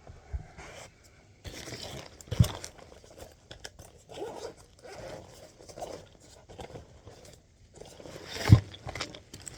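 Hands and tools working inside an HVAC unit's wiring compartment: irregular clicks, scrapes and rustling as wires and terminals are checked for tightness, with two sharper knocks, one a couple of seconds in and one near the end.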